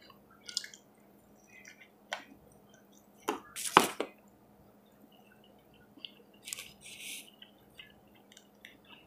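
Close-up eating sounds: a person chewing meat, with scattered wet mouth clicks and smacks. The loudest sharp smack comes a little before four seconds in.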